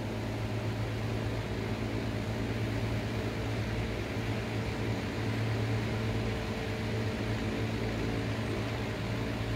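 A steady machine hum, a low drone with a hiss over it, running without change.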